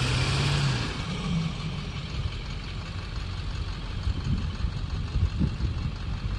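Pickup truck engines under a tug-of-war pull: loud engine noise that drops off about a second in, after which the engines idle.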